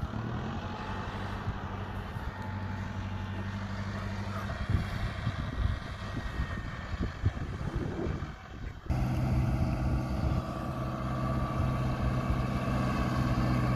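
Mahindra Arjun Novo 605 tractor's 57 hp diesel engine running steadily under load, driving an 8-foot Maschio rotavator that is puddling a flooded field. There are a few knocks around the middle. About two-thirds of the way in, the engine note turns suddenly louder and slightly higher.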